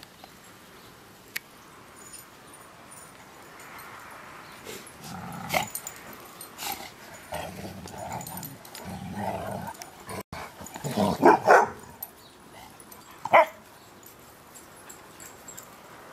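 A group of dogs at rough play, growling at one another for several seconds, then a quick run of loud barks about eleven seconds in and one more bark about two seconds later.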